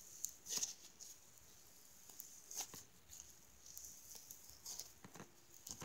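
Green glitter slime squeezed and kneaded in a hand, giving quiet, irregular small clicks and pops, a few of them louder.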